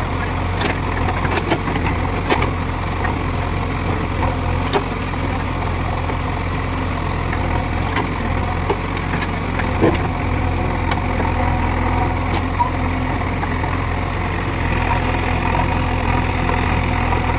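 JCB 3DX Eco backhoe loader's diesel engine running steadily as the backhoe digs soil, with scattered short sharp knocks and clicks over the engine.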